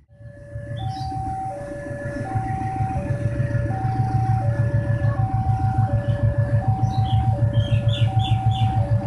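Railway level-crossing warning alarm sounding a steady alternating two-note tone, low then high, each note about two-thirds of a second, over a low pulsing rumble that grows louder as a train approaches.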